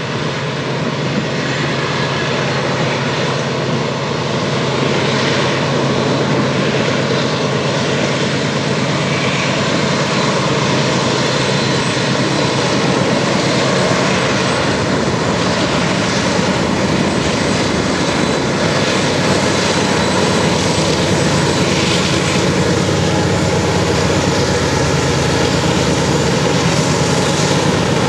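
Three BNSF diesel locomotives leading a double-stack container train, their engines making a loud, steady rumble as they pass. The rumble grows louder about five seconds in and then holds.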